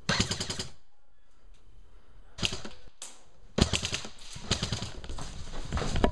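Airsoft guns firing in rapid full-auto bursts of quick clicks. One short burst comes at the start, a brief one comes in the middle, and a longer run of bursts goes from past halfway to the end.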